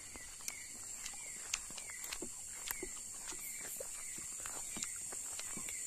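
Steady high-pitched chorus of night insects, with light sharp ticks recurring about twice a second.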